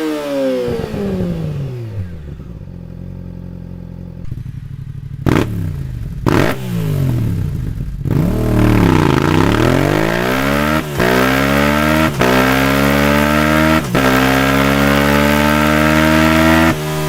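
Yamaha R-series sport bike engine and exhaust: the revs fall away to idle, two quick throttle blips follow, then it pulls away and accelerates hard through about four upshifts. The pitch climbs in each gear and drops briefly at each shift.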